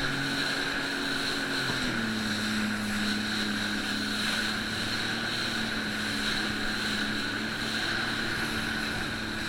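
Jet ski engine running steadily, its note dropping slightly about two seconds in, with a steady high whine over it.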